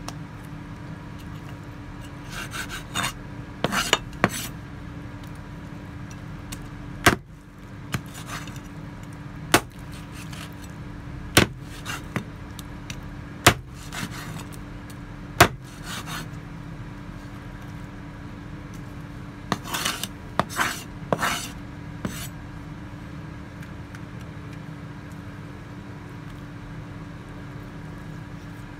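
Meat cleaver chopping chicken on a wooden cutting board: five sharp knocks about two seconds apart in the middle, with bursts of scraping of meat and blade across the board before and after them. A steady low hum runs underneath.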